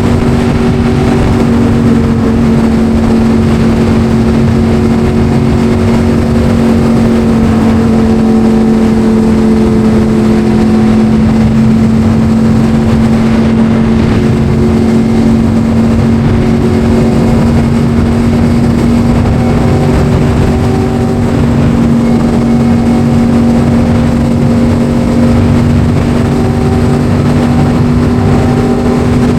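Yamaha R1 sport bike's inline-four engine running at a steady cruise, its drone holding an almost constant pitch, with wind rushing over the microphone.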